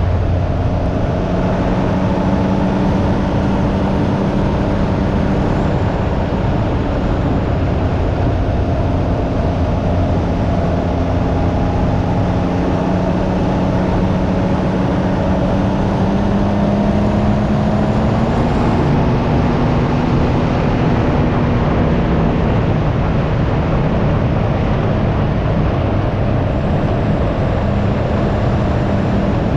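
Can-Am Ryker 900's Rotax three-cylinder engine running under way, with heavy wind rush over the microphone. The engine note climbs slowly over the first two-thirds, then shifts and holds.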